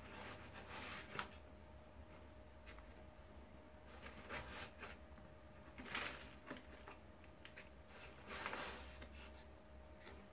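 A putty knife scooping dry gypsum joint compound powder from a paper sack and tipping it into a small plastic cup: four short, faint scraping rustles a couple of seconds apart.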